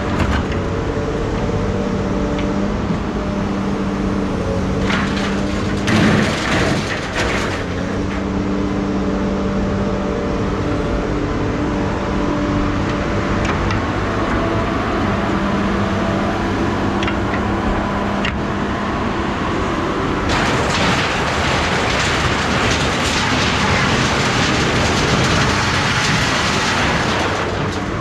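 A motor vehicle's engine running with a steady hum, with two spells of louder rushing noise, a short one about five seconds in and a longer one about twenty seconds in.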